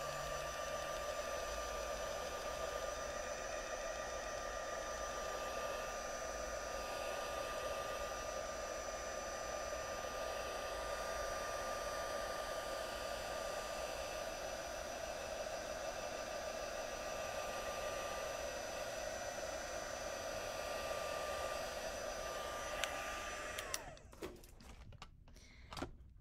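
Stampin' Up! heat tool (craft heat gun) running steadily, a rushing blow with a steady whine, drying the damp ink and water on watercolor paper; it switches off near the end.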